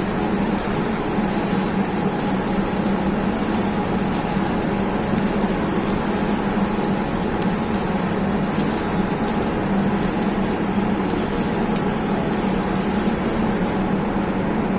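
Arc welding on a large steel pipe: a steady, dense crackle and hiss over a steady machine hum. The crackle stops about a second before the end, leaving the hum.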